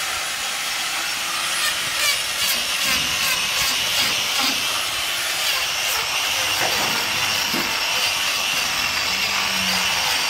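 Electric angle grinder running steadily while its disc grinds down a cow's hoof, a high whine with grinding and scraping as the disc bites into the horn.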